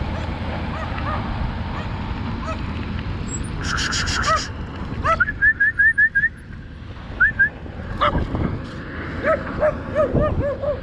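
Dogs barking and yelping at a passing bicycle: a quick run of high yips in the middle, then a string of deeper barks near the end, with wind rushing on the microphone at the start.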